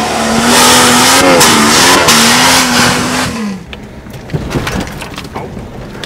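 Off-road 4x4 engine held at high revs, wavering, with a loud rushing noise of wheels spinning, until it drops off about three and a half seconds in; then scattered quieter clicks and knocks.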